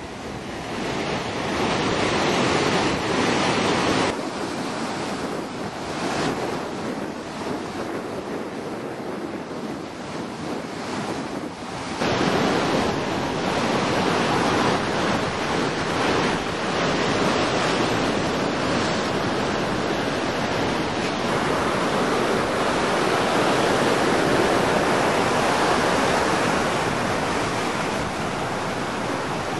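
Ocean surf breaking and washing over a rocky shore, a steady rushing wash. It drops abruptly about four seconds in and comes back louder about twelve seconds in.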